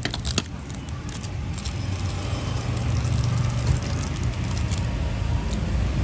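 Steady low rumble of road traffic, growing slightly louder, with a few sharp clicks and taps from a Zippo lighter being handled, two of them right at the start.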